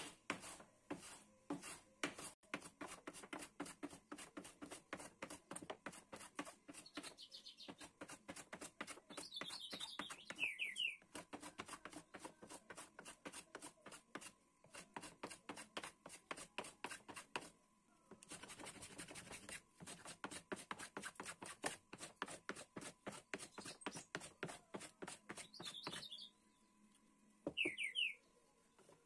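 Metal bench hand plane shaving a wooden board in quick repeated strokes, a few a second, with short pauses between runs. A bird chirps a few times in the background.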